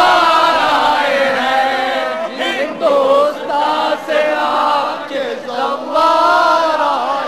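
A crowd of men chanting an Urdu noha, a mourning lament, together in long, wavering sung phrases, with short breaks between the lines.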